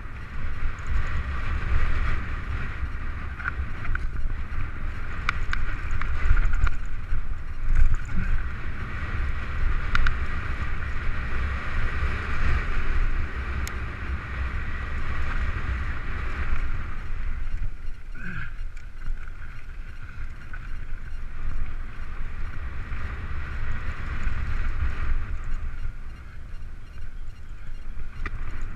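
Mountain bike rolling down a rough dirt singletrack, heard from a bike-mounted camera: wind buffeting the microphone and a steady low rumble of trail vibration, with clicks and rattles from the bike over bumps. A higher hiss runs along with it and drops away about two-thirds of the way through.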